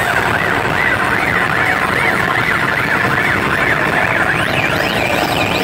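Live rock band's amplified noise: a loud distorted wash with a siren-like electronic tone warbling up and down several times a second, climbing higher near the end.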